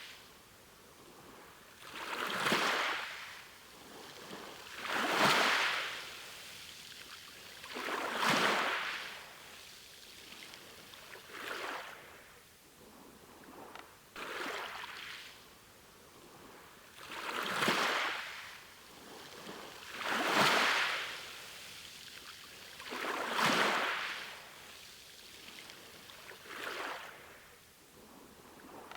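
Sea waves washing ashore: a swell of hissing surf that rises and falls about every three seconds.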